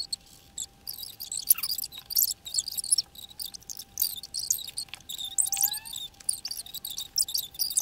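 Pencil and pen tips scratching across paper in quick, irregular strokes while drawing. A faint steady tone sits underneath.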